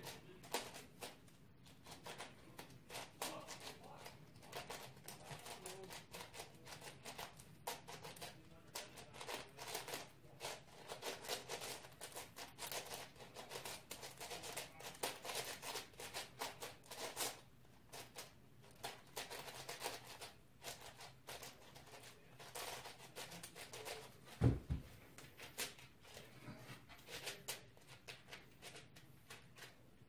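Rapid, irregular clicking and clacking of a large speedcube's plastic layers being turned by hand. About three-quarters of the way through there is a single heavy thump as a cube is set down on the desk.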